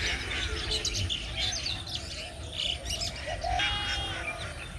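Many small birds chirping and twittering in quick, overlapping short notes, over a low steady rumble.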